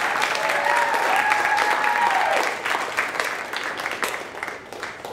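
Audience applauding, with a few held cheering voices over the clapping, the applause dying away over the last couple of seconds.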